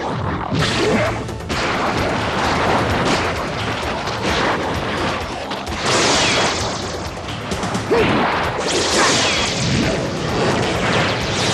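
Animated fight sound effects: a sudden loud crash, then a dense, unbroken run of smashing impacts and rumbling as a clawed hand strikes the ground.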